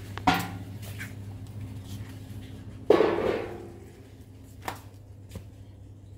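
Two sudden bangs, one just after the start and one about three seconds in, each ringing out for about a second over a steady low hum, followed by a couple of faint clicks.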